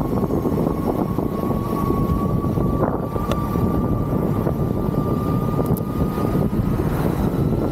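Ovaobike MCR-M electric motorcycle under way: a thin, steady electric motor whine that rises slowly in pitch, over a heavy rumble of wind and road noise on the microphone.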